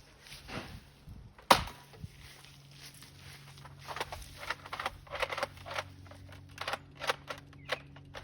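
A Nerf blaster fires once with a sharp snap about a second and a half in, followed by a run of irregular short clicks and crunches.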